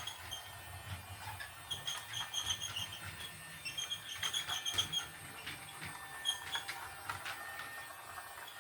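Toy steam train set running: irregular clusters of short, high chirps and light clicks, busiest in the middle.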